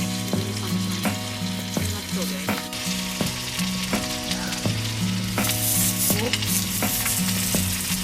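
Food sizzling as it fries in a hot pan, the sizzle growing louder about five seconds in, with light background music playing under it.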